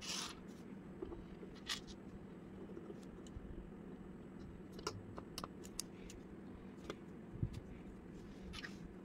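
Plastic Lego bricks being handled and pressed together: scattered sharp clicks and light scraping, over a steady low hum.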